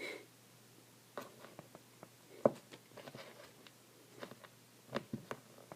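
Faint, scattered small clicks and taps of a handheld phone being handled, the sharpest about two and a half seconds in, with a pair near the end.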